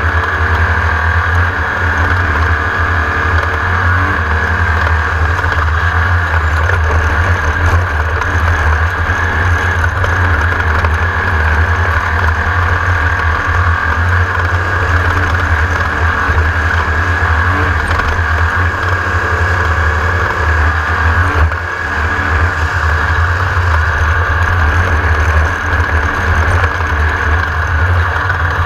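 Class 1600 off-road race buggy's air-cooled 1600 cc VW engine running hard at racing speed, a loud steady drone with a brief dip about two-thirds of the way through.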